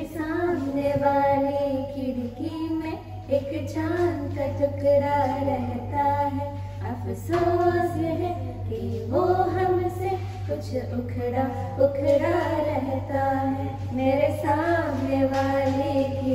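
Two women singing a song together into a microphone, with many long held notes and a steady low hum underneath.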